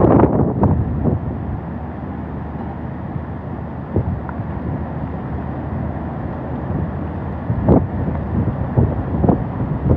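Hurricane wind blowing steadily, with gusts buffeting the microphone at the start, briefly about four seconds in, and again near the end.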